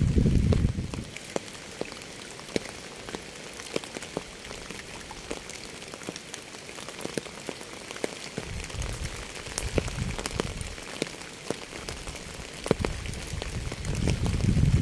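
Steady rain falling, with many sharp individual drops ticking through the hiss. A low rumble swells up at the start, twice more around the middle, and again near the end.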